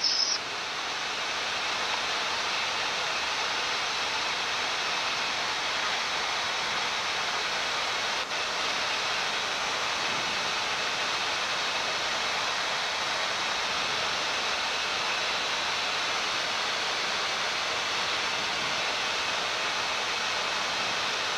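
Steady rushing hiss of air on a Boeing 787-9 flight deck in flight: slipstream and air-conditioning noise, even throughout, with a brief drop about eight seconds in.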